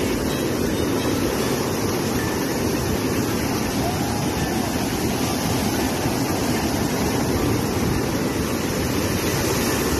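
Surf breaking and washing up a beach: a steady, even rush of waves.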